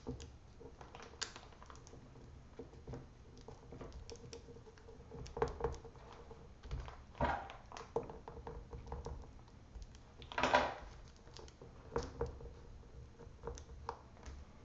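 Scattered light clicks and taps with a few short rubs, from hands pressing adhesive tape down and handling a laptop's replacement screen panel and its plastic parts. The loudest rub comes about ten and a half seconds in.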